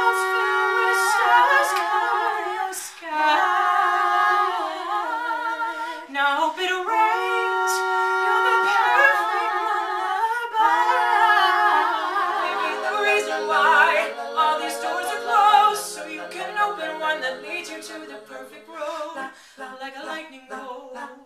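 Three voices singing a cappella in close harmony, holding long notes with vibrato; a lower part comes in about halfway through.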